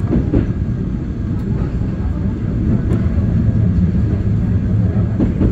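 Seoul subway Line 1 electric train running along the track, heard from inside the carriage: a steady, loud, low rumble of wheels and running gear.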